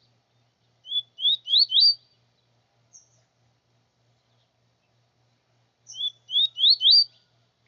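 Small songbird singing a short phrase of four quick rising notes, twice, about five seconds apart, with a single short high chirp between them.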